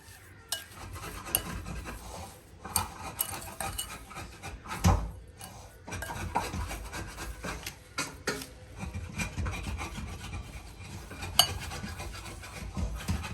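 Grated white turnip and sugar being stirred together in a bowl: an irregular rasping, scraping rub with occasional knocks against the bowl.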